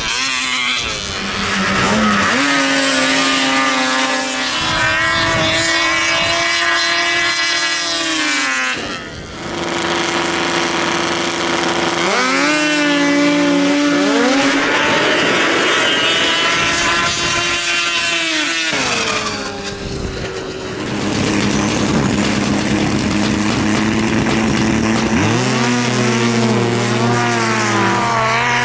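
Snowmobile engines at full throttle on a snow drag strip, in three runs one after another. Each time the engine pitch climbs quickly, holds high and steady for several seconds, then falls away.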